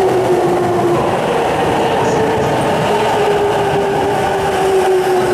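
Electric commuter train pulling into the platform: a steady traction-motor whine, sagging slightly in pitch, over the rumble of wheels on the rails.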